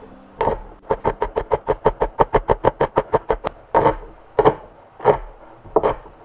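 Sharp knocks from kitchen food preparation: a quick run of about five a second for two or three seconds, then a few single knocks, roughly one every two-thirds of a second.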